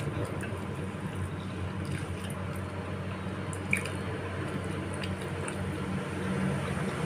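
Wet chewing and slurping of meatball soup with spinach, with one sharp click a little under four seconds in, over a steady low hum.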